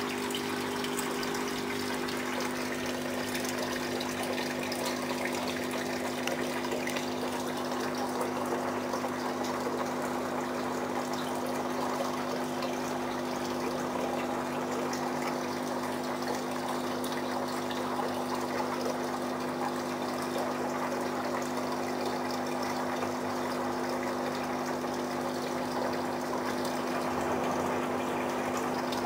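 Aquarium filter pump running: a steady hum under constant trickling, splashing water.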